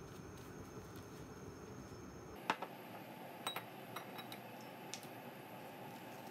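Several light clinks and taps as a pour-over coffee dripper is set down and settled onto a drinking glass, the sharpest about two and a half seconds in.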